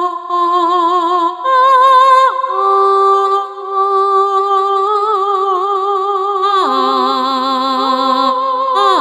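Korg Pa700 arranger keyboard playing a sustained, voice-like preset with vibrato. It starts on one held note, then two notes sound together, and the pitch slides down twice, about two and a half and six and a half seconds in, bent with the joystick.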